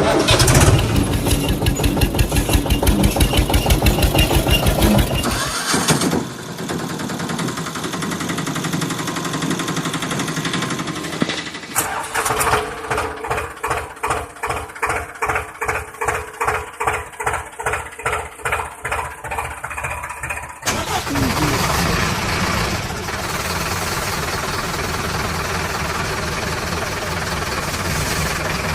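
Vehicle engine sounds that change every several seconds: fast, even chugging for the first six seconds, a steadier run, then slower regular pulses about twice a second from about twelve to twenty seconds, and a steady engine run to the end.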